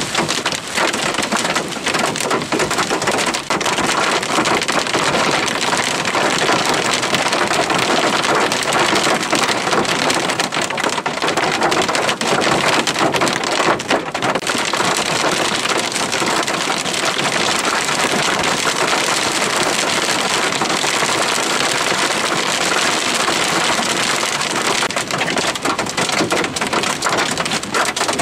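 Wind-driven hail pounding a car's body and windows, heard from inside the car: a dense, steady clatter of impacts.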